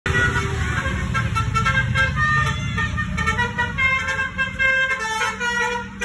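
A tour bus's multi-tone telolet horn playing a quick tune of short notes that keep changing pitch, over the low rumble of the bus engine and traffic.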